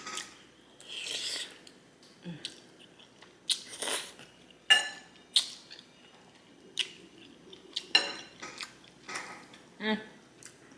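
Close-miked spaghetti eating: a fork clinking and scraping on the plate among slurps, chewing and mouth clicks, heard as a string of short, separate sounds with quiet between them.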